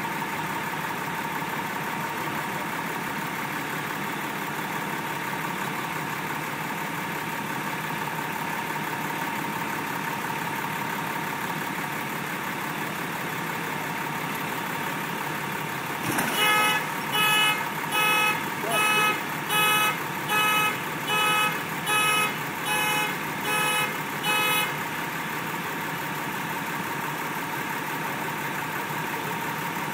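Tow truck engine idling steadily. About halfway through comes a thump, then a car horn honks about eleven times in an even rhythm, a little over once a second, for about eight seconds.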